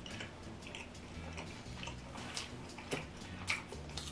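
Close-miked chewing of food, with many small wet mouth clicks and a few louder smacks near the end.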